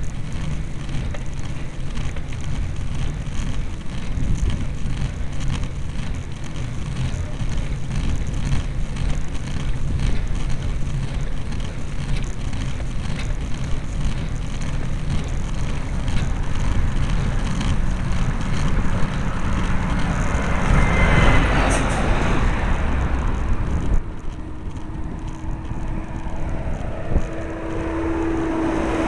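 Wind rushing over the microphone of a bike-mounted camera on a climb, a steady low rumble. About two-thirds of the way through a motor vehicle swells past in a loud rush, and near the end an oncoming truck grows louder with a steady engine hum.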